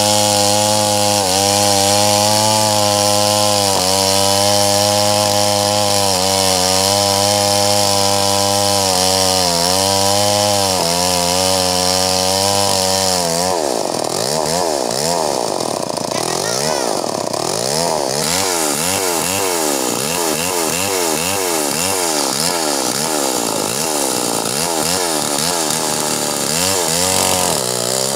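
Stihl MS 381 two-stroke chainsaw running at full throttle, ripping lengthwise through a red meranti log. Its pitch holds steady with brief dips as the chain bites, then from about halfway it rises and falls over and over as the saw works in the cut.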